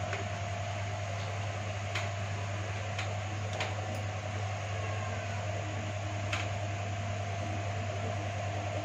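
A steady mechanical hum with a thin steady tone over an even hiss, unchanged throughout, with a few faint clicks scattered through it.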